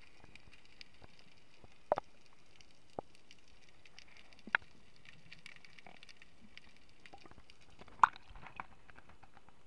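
Muffled underwater sound picked up through a camera's waterproof housing during a scuba dive: a faint steady hiss with scattered sharp clicks and knocks. The loudest knock comes about eight seconds in, as water churns around the camera.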